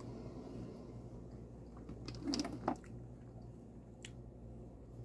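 A person chewing food with her mouth closed over a steady low room hum. There is a short hummed vocal sound just past halfway and a few light clicks.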